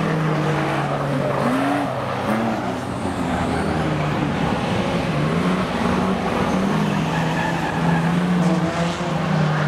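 Several speedway stockcar engines running together, their pitch wavering up and down.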